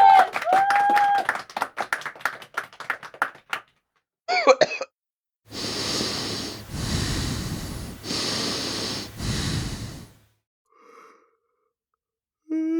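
A man's non-speech vocal sounds in quick succession: a short voiced burst, then four heavy, noisy breaths of about a second each, and a falling voiced groan starting near the end.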